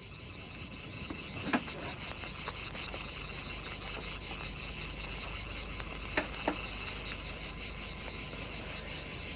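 Crickets chirping in a steady, fast-pulsing night chorus. A few faint clicks come through, about one and a half seconds in and twice around six seconds in.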